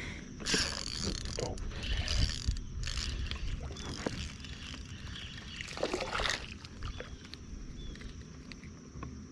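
Steady low wind rumble on an action-camera microphone, broken by five or six short rustling bursts.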